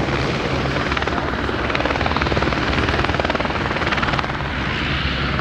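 Aircraft engine running close by: a loud, steady drone with a rapid, even pulsing that grows stronger through the middle and eases near the end.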